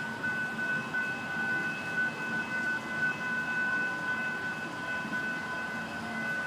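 Railroad grade crossing as a freight train clears it: a low rumble with a steady, high-pitched single tone over it.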